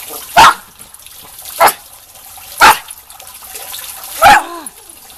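Schipperke barking four times, short sharp barks about a second apart, over water trickling into a storm drain.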